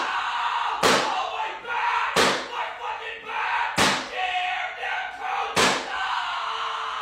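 Four loud bangs, each a little further apart than the last, over a continuous crowd-like murmur.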